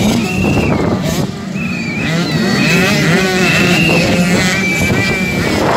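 Small motocross bike engines revving hard, their pitch rising and falling again and again as the riders work the throttle over the jumps. More than one bike is heard at once.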